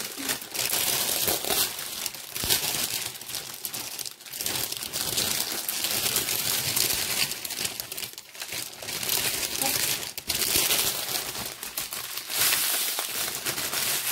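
Clear plastic wrapping, stuck down with sticky tape, crinkling and rustling in fits and starts as it is pulled off a package by hand.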